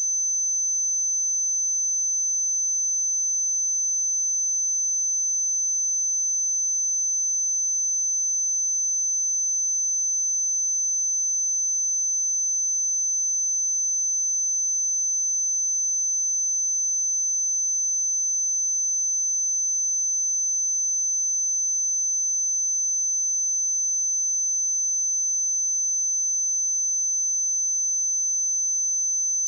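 A pure 6131 Hz sine-wave test tone, a single steady high-pitched whistle held at an unchanging level.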